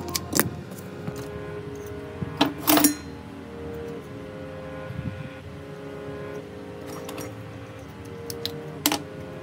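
Sharp clicks and clatters of a smartphone motherboard and small phone parts being handled, the loudest about two and a half seconds in and another near the end, over soft background music with held notes.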